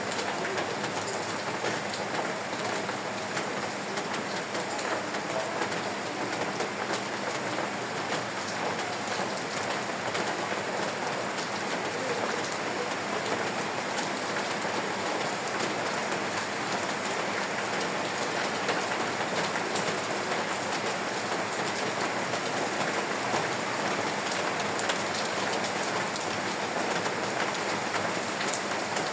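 Steady rain falling, a continuous even hiss with many small drop patters.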